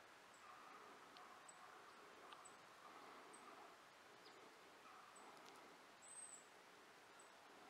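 Near silence: faint outdoor ambience, with faint, very high-pitched chirps repeating about every second and one longer chirp near the end.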